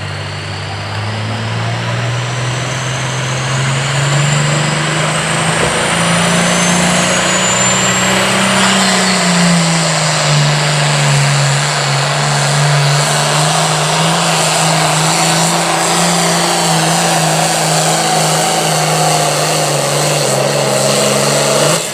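A pro farm class pulling tractor's turbocharged diesel engine runs hard at full throttle through a pull. A high whine climbs steadily over the first several seconds. The engine note dips slightly partway through and then holds until it cuts off near the end.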